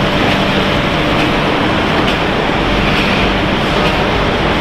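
Steady machinery noise of a continuous snack-frying line running, with fried snack chips sliding and tumbling down a stainless steel discharge chute.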